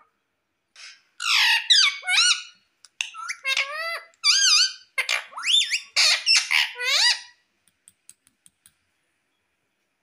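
Indian ringneck parrot giving a run of shrill, pitched calls whose pitch swoops up and down, about six seconds of them in quick succession, followed by a few faint clicks.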